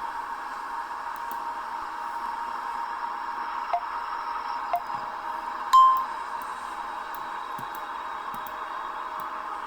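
Steady hiss like static, with a few faint clicks, and a short bright ping about six seconds in that is the loudest moment.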